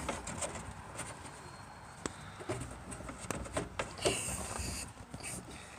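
Scattered light clicks and knocks of hands and tools handling door parts, with a brief scraping rustle about four seconds in.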